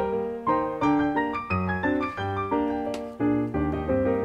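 Background piano music, a gentle melody of struck notes over a steady accompaniment.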